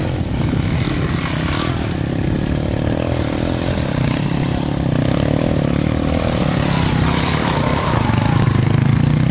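Off-road motorcycle engine running and revving as the bike climbs over rough dirt, its pitch rising and falling with the throttle and getting a little louder near the end.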